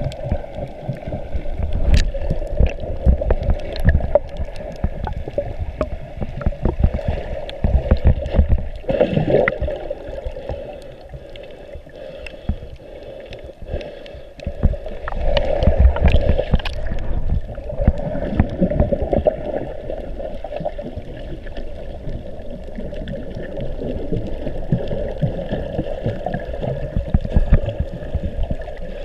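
Water heard from underwater through a GoPro's waterproof housing: muffled sloshing and gurgling with low rumbling and scattered clicks as a snorkeler swims just under the surface.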